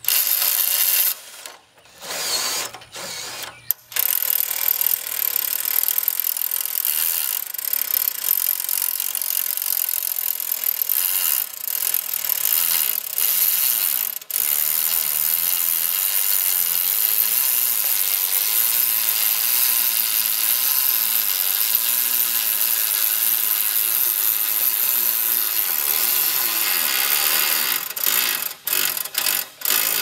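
Electric drill driving the Wood-Mizer LT15 sawmill's hand-crank log winch through a socket adapter, winding in the cable to haul a pine log up the loading ramps. It gives a few short trigger bursts at first, then runs steadily under load for about twenty-five seconds, and ends in short stop-and-start bursts.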